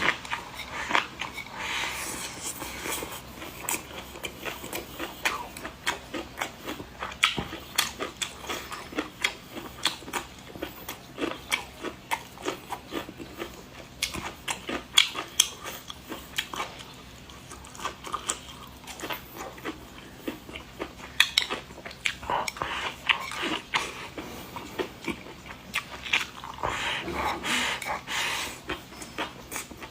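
Close-up eating sounds: a person chewing and biting food, with many irregular sharp clicks and smacks of the mouth and teeth.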